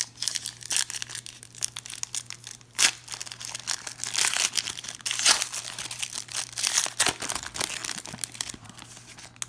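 A trading-card pack's foil wrapper crinkling and tearing as it is handled and opened, in a run of sharp rustles and clicks, loudest about three and five seconds in.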